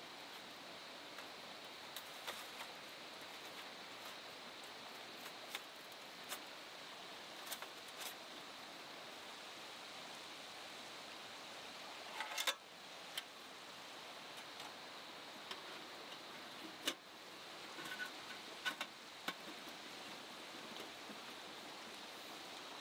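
Steady rush of a flowing river, with scattered small clicks and knocks over it and a short clatter about halfway through.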